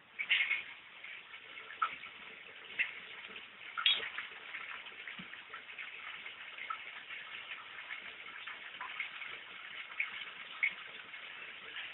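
Outdoor ambience: a faint steady hiss with scattered short, high chirps and ticks, one sharper tick about four seconds in.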